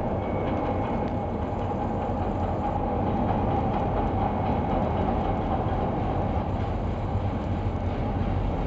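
CTA subway train approaching through an underground tunnel: a steady rumble of wheels on rail with a faint high tone running over it.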